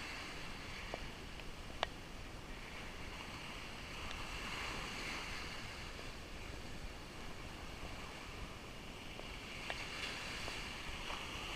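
Gentle sea surf washing on a beach, an even steady hiss, with a single sharp click about two seconds in.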